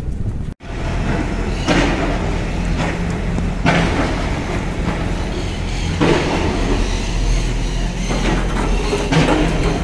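A steady low mechanical hum from a running motor, with several louder swells of noise over it.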